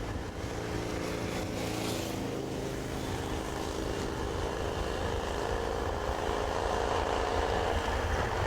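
A heavy engine running with a steady low rumble and hum, growing gradually louder.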